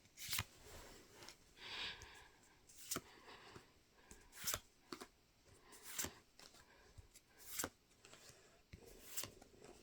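Pokémon trading cards being handled and flicked through one at a time: a sharp card snap about every second and a half, six in all, with faint paper rustling between.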